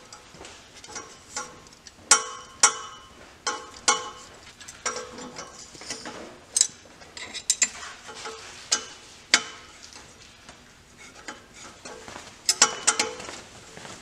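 Irregular metallic clicks and taps from a long hex driver turning and seating in the clamp bolts of a driveshaft center-support bearing carrier while the bolts are snugged down alternately, side to side. The clicks come in small clusters, the loudest about two seconds in and again near the end.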